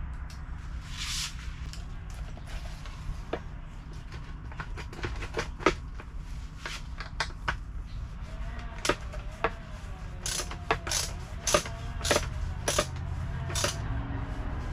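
Hand tools working at rusty nuts and screws on a Kawasaki KDX200's tool-bag mount: sharp, irregular metal clicks and ticks, sparse at first and coming quicker and louder in the second half, over a low steady hum.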